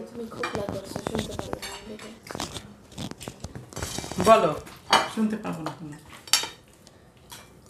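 Forks and knives clicking and scraping on metal dinner plates during a meal, with a few short bursts of voices about halfway through.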